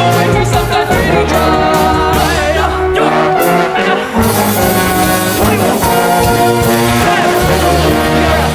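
Loud music with brass instruments playing sustained chords over held bass notes.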